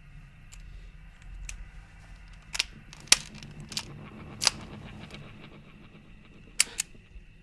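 Stainless revolver being handled, its mechanism giving about six sharp metallic clicks. The loudest click comes about three seconds in, and two come close together near the end.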